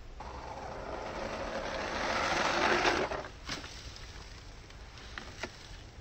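Battery-powered RC toy monster truck running in sand: its electric motor whirring and wheels churning the sand, growing louder for about three seconds and then falling away, with a few light knocks after.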